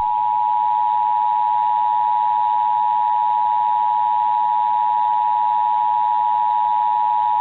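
Emergency Alert System two-tone attention signal: two close pitches just under 1 kHz (853 and 960 Hz) sounding together as one steady, loud tone. It is the alert tone broadcast ahead of an emergency voice message.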